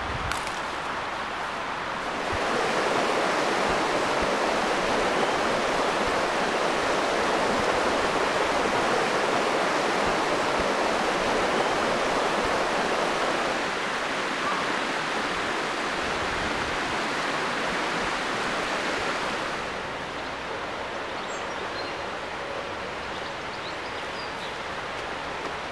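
Steady rush of flowing river water, getting louder about two seconds in and dropping back in two steps in the second half.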